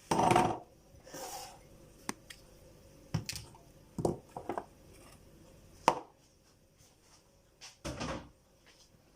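Kitchen jar and utensils knocking and clinking as honey is added to a jar: a louder knock at the very start, then several lighter, scattered knocks and clinks.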